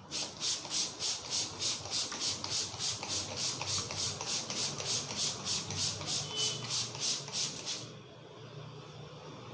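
Hands rubbing briskly back and forth over hair and scalp during a head massage. The strokes come as an even hiss about three times a second and stop about eight seconds in.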